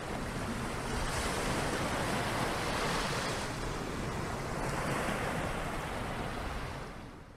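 Logo-reveal sound effect: a rushing, surf-like swell of noise. It builds about a second in, swells again around five seconds, and fades out at the end.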